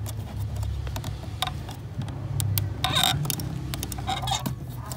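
Nylon cable tie being pulled tighter around a clutch pedal pushrod bracket: scattered sharp clicks and a short rasping burst about three seconds in, over a steady low hum.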